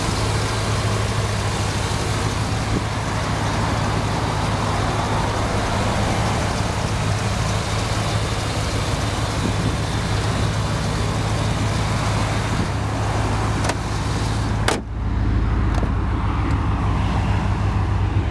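1991 Chevrolet Silverado's 5.7-litre (350) V8 idling steadily, heard with the hood open, as a low even hum with a broad rush over it. Near the end a click comes, and after it the sound is duller, mostly the low hum.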